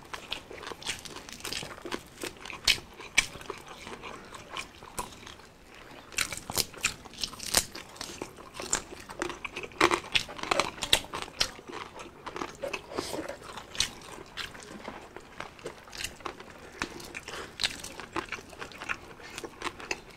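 Close-up crunching and chewing of crispy deep-fried pork eaten by hand, a run of sharp crackly bites with wet chewing between them.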